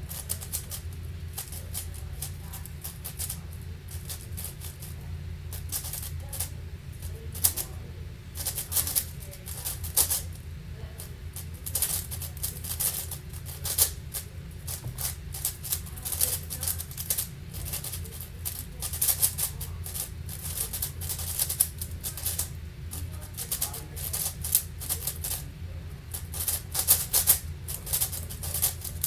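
Rapid, irregular clacking of an Angstrom AoFu WRM 7x7 speedcube's plastic layers being turned fast during a speedsolve, with a steady low hum underneath.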